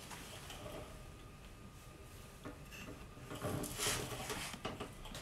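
Rustling and crinkling of a Plastigauge strip's paper sleeve handled in gloved hands as a piece is broken off, loudest between about three and a half and four and a half seconds in.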